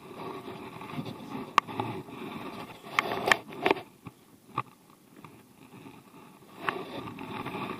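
Handling noise: jackets and a cloth rustling close to the microphone, with a few sharp knocks and taps, while a small fish is gathered up off the wooden deck boards in a cloth.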